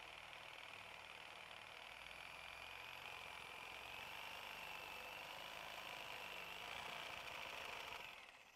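Reciprocating saw cutting through a steel truck frame horn, heard faint and steady with a thin wavering whine, fading out near the end.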